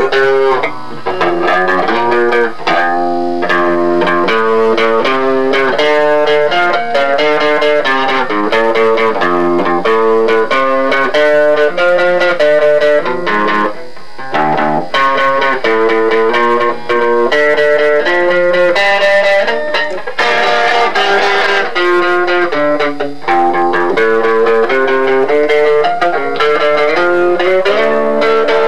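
Guitar played as a lead line, a steady run of single notes changing in quick succession.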